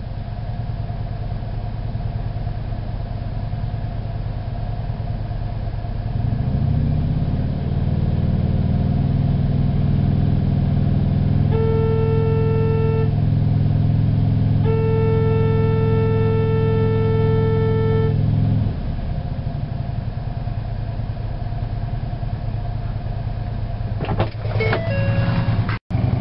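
Stock Harley-Davidson electric horn heard from inside a closed car cabin with the car's engine idling: two steady blasts, a short one about twelve seconds in and a longer one of about three and a half seconds. Both sound over the motorcycle's engine, revved from about six seconds in until just after the second blast. A few clicks and knocks near the end.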